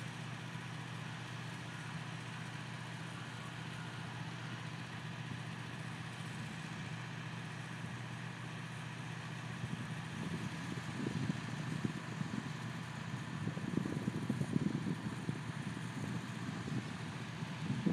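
Ground equipment running steadily during aircraft refuelling: a low engine hum with a faint higher whine. From about ten seconds in, gusts of wind buffet the microphone.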